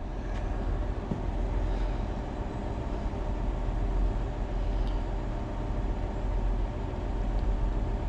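A steady low bass test tone, around 35 Hz, playing through subwoofers with the amplifier gain turned down low.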